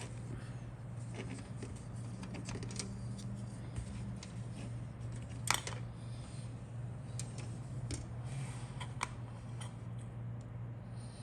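Light scattered clicks and taps of plastic model-kit parts and sprues being handled, the sharpest about halfway through, over a steady low hum.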